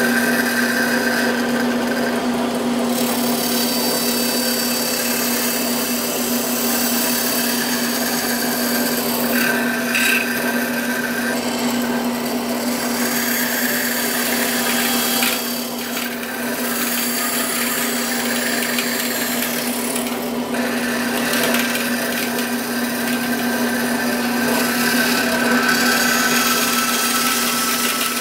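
Bandsaw running and cutting wood: a steady motor hum under the continuous rasp of the blade in the cut. The cutting noise eases briefly about fifteen and again about twenty seconds in.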